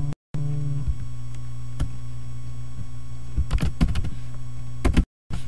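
Steady low electrical mains hum from the recording setup, with a few computer keyboard keystrokes clicking, most of them in a short cluster past the middle. The audio cuts out briefly twice, once near the start and once near the end.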